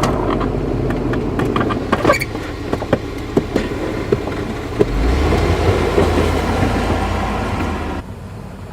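An engine running steadily, with a run of sharp clicks and scrapes in the first few seconds. The engine grows louder about five seconds in and drops off suddenly near the end.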